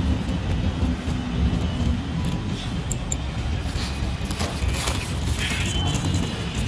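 Small plastic packaging bags crinkling and small microphone accessories being set down on a tabletop with a few light ticks, over a steady low background rumble.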